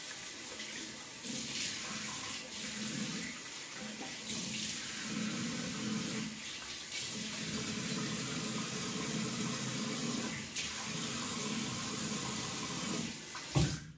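Water running from a tap into a sink while hands splash it onto the face, rinsing off shaving lather between passes. The running water stops with a knock near the end.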